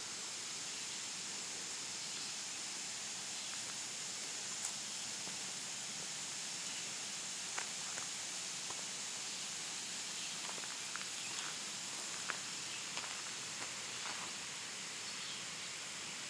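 A steady outdoor hiss, with a scattering of faint light clicks and rustles through the middle and latter part.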